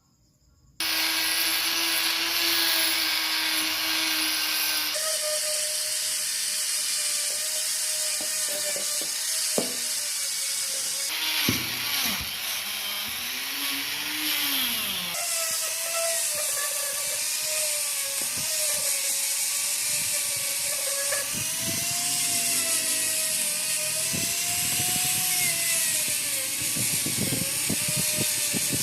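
Electric power tool running and abrading metal: a dense high hiss over a motor whine whose pitch dips and wavers as the tool is pressed on. The sound changes abruptly three times, and a run of light knocks comes in near the end.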